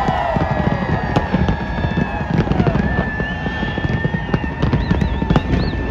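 Large aerial fireworks display going off in rapid succession: a dense, continuous crackle of bursts over a low rumble.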